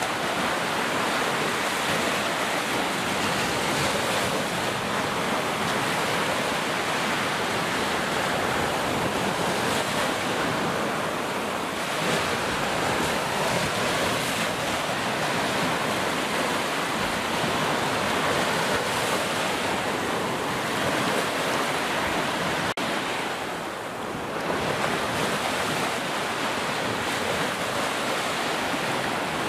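Ocean waves crashing and washing ashore in a continuous dense roar of surf, swelling and easing gently, with a brief lull about 24 seconds in.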